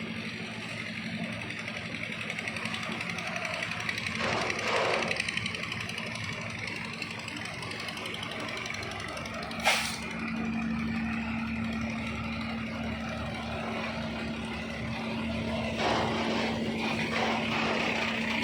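Heavy truck's engine running at low speed with a steady hum, as the tall trailer rig creeps along. A single sharp knock sounds about halfway through.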